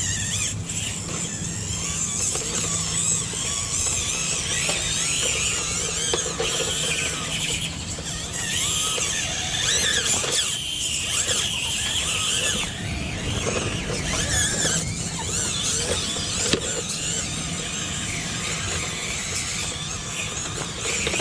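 High-pitched whine of micro-scale RC crawlers' small electric motors and geartrains, wavering up and down in pitch as the trucks are throttled over rocks. It is strongest for the first half and fades somewhat later on.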